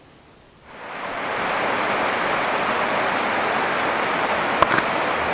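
Snowmelt stream rushing through a gap in a snowfield. It comes in about a second in and then runs steadily, with one brief click near the end.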